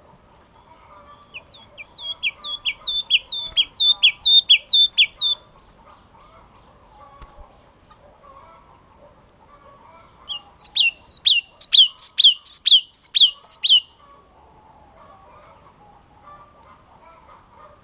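A yellow-cheeked tit (chi chi mào) singing two bouts of quick, repeated down-slurred whistled notes, about three a second: one bout starting a little over a second in, the other starting about ten seconds in.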